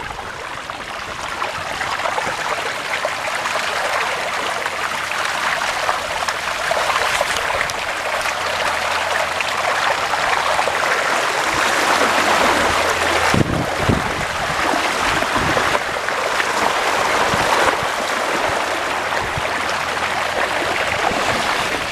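Floodwater rushing and splashing steadily as a bicycle is pushed through thigh-deep water in a flooded street, with a few low knocks about halfway through.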